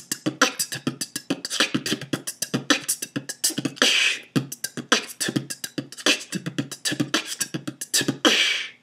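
Beatboxing: a looped 16-beat pattern of mouth-made bass kicks, hi-hats and snares (B t t B K t t B t t B t K t t B) in a rapid, unbroken run of short strokes.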